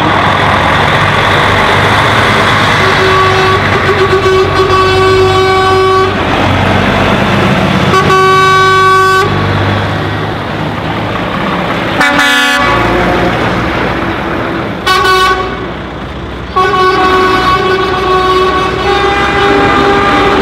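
Lorries with their engines running drive past one after another, and their horns sound in several blasts, some short and some held for a couple of seconds.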